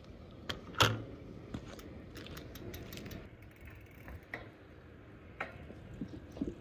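Mechanical clicks from a road bike's rear hub and drivetrain: a sharp clack about a second in, then a run of light ratcheting ticks, and a few more clicks near the end.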